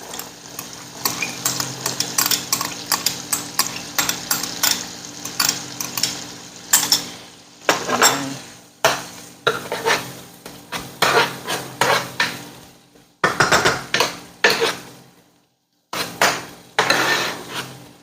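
A cooking utensil stirring and scraping against a frying pan in quick irregular strokes, as onion, garlic and ginger are sautéed in butter and olive oil, with some sizzling. The stirring stops briefly about fifteen seconds in.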